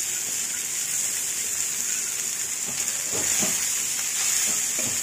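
Hot oil and tempering sizzling steadily in a metal kadai as cooked rice is tipped in and turned with a spatula, with a few faint scraping strokes in the second half.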